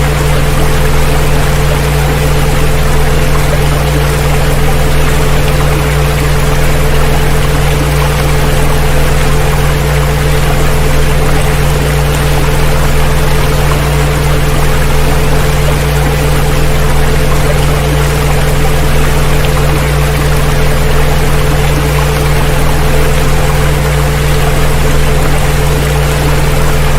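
Several steady electronic tones at different low pitches held together, laid over an even, unbroken rush of water.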